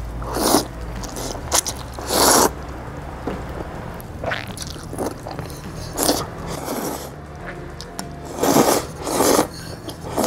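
A person slurping springy jjamppong noodles in about five short, loud slurps spread through, with quieter chewing between.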